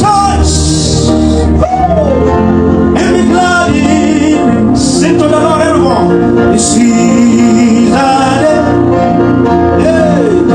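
Gospel praise music: male and female voices singing over a live band with guitar and a steady bass.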